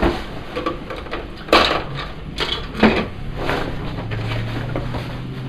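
Handling noises as a heavy Cordura nylon bag is moved around: rustling of the stiff fabric and three sharp knocks, the loudest about a second and a half in. A steady low hum comes in a little past halfway.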